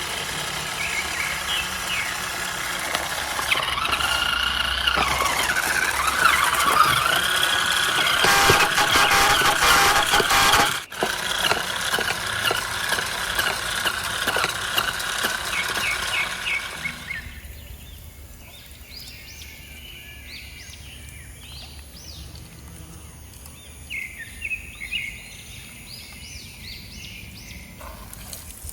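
Small electric motors and gearboxes of radio-controlled model trucks whining, the pitch shifting up and down as they work, for about the first two-thirds. Then the machinery stops and birds chirp over a quiet outdoor background.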